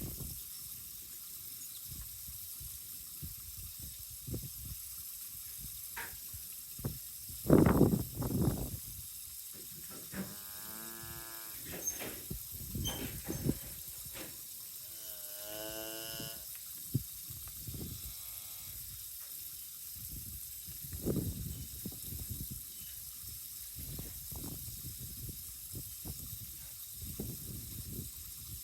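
Cattle mooing twice, each call about a second and a half long with a bending pitch, over gusts of wind rumbling on the microphone; the loudest gust comes a few seconds before the first moo.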